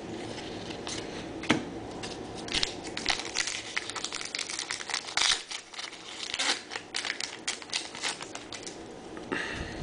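Trading-card pack wrappers being torn open and crinkled, a run of irregular crisp crackles with a sharper click about a second and a half in.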